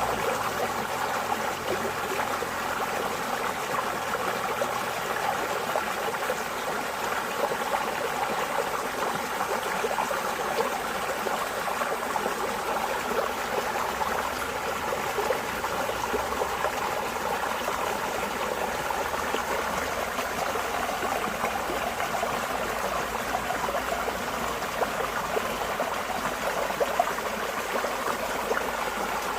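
Running water flowing steadily, an even, unbroken rush of a stream.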